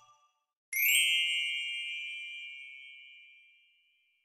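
A single bright chime sound effect, starting with a short shimmering sweep about a second in and then ringing out and fading over about three seconds.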